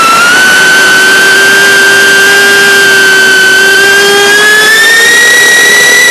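Brushless motors and propellers of an Eachine Lizard 105S micro FPV quad, heard through its onboard camera: a loud steady high whine whose pitch climbs slowly as throttle is added.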